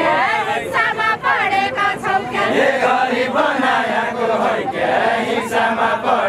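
A group of young men singing a Nepali folk song together in chorus, several voices overlapping.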